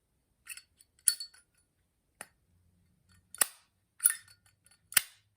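Zippo windproof lighter's hinged brass-and-steel lid flipped open and snapped shut again and again: several sharp metallic clicks with a bright, ringing 'ting', spaced unevenly about a second apart.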